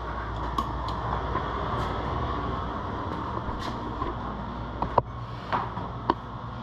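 Steady low rumbling hum with a few sharp clicks and knocks scattered through it, the loudest near the end.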